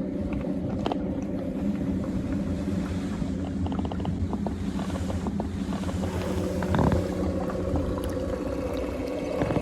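NISUS 40 lb electric trolling motor running steadily while pushing a boat along, a constant hum of several steady tones over a low rumble of water and wind.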